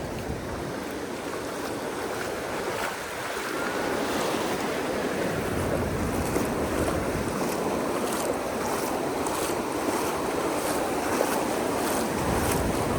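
Ocean surf washing onto a sandy beach: a steady rush of breaking waves that swells a little about three and a half seconds in.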